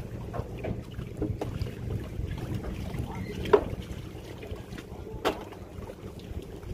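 Steady low rumble of wind and river water around a small boat, with scattered light knocks; the sharpest knock comes about three and a half seconds in and another just after five seconds.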